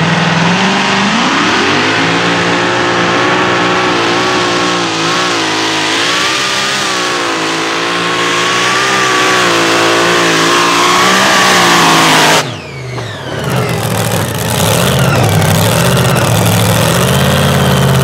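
Competition pulling tractor's engine revving up and held at high revs for about twelve seconds, its pitch wavering under load as it drags the weight sled. The sound then cuts off suddenly, and a lower, rougher engine sound follows.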